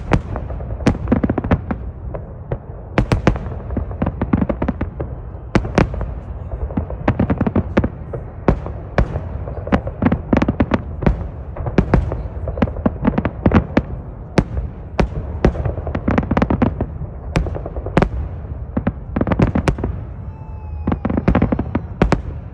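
Aerial fireworks shells bursting in rapid, overlapping succession: many sharp bangs over a continuous low rumble.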